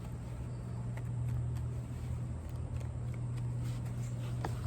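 A steady low mechanical hum over faint background noise, with a few light ticks.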